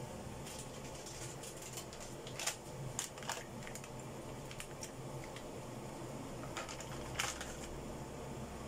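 Hot oil frying in a pan, popping and spattering in irregular sharp crackles, the loudest about two and a half seconds in and again near the end, over a steady low hum.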